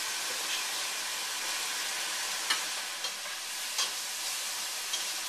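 Chopped lamb shoulder searing in a stainless steel pot, a steady sizzle, while a metal slotted spatula stirs it and clicks against the pot a few times in the second half.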